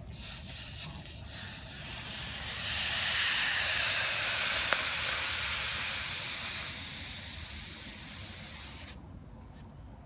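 Steam hissing from a red-hot copper tube as a wet rag is wrapped around it to quench it. The hiss swells over the first few seconds, fades, and cuts off sharply near the end.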